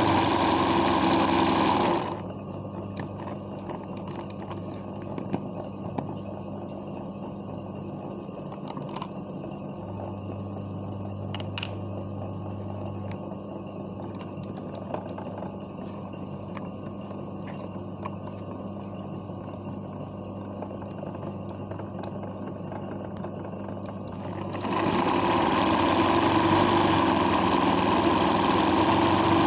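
Sewing machine running steadily as it stitches free-hand embroidery in a hoop. It stops about two seconds in, leaving a low hum and a few faint clicks. It starts running again near the end.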